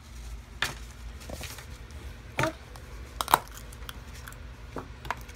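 A toy surprise egg being opened by hand: scattered clicks and crinkles of plastic and wrapping, the sharpest click a little over three seconds in.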